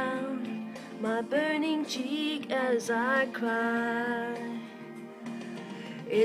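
A woman singing a slow melody in short phrases, ending in a note held for about a second, over soft, steady musical accompaniment that carries on after her voice trails off near the end.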